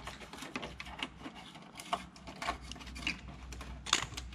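Irregular light clicks and taps, scattered through the whole stretch, over a low steady hum.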